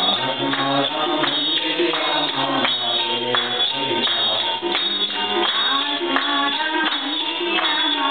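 Harmonium accompanying a group singing a devotional bhajan, with hand claps and hand percussion keeping the beat.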